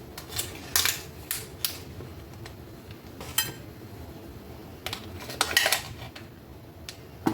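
Scattered kitchen clatter of dishes and utensils: light knocks and clinks, with one ringing metallic clink about three and a half seconds in and a quick cluster of knocks around five and a half seconds.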